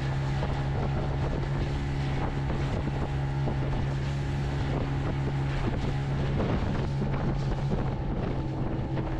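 Fishing boat's motor running steadily at speed as the boat powers out over the waves, with wind blowing on the microphone.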